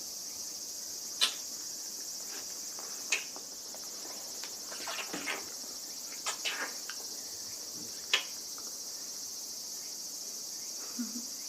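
Steady chirping of crickets or other insects, with a few sharp clicks and soft taps scattered through it, the sharpest about a second in, three seconds in and eight seconds in.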